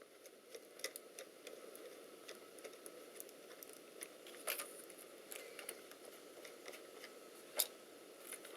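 Faint scattered clicks and ticks of small screws and a screwdriver as a laptop's GPU card is screwed back into place, with a sharper click about four and a half seconds in and another near the end.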